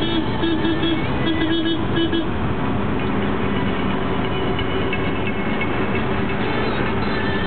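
Road and engine noise inside a van cabin at motorway speed, a steady loud drone. In the first two seconds it is overlaid by a string of short tooting notes.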